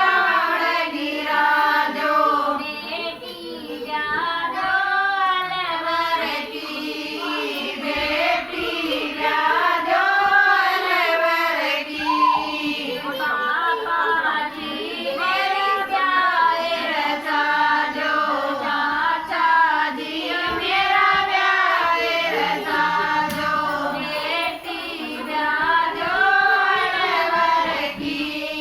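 High voices singing a Haryanvi banna, a folk song in praise of the groom, together in a continuous melodic line.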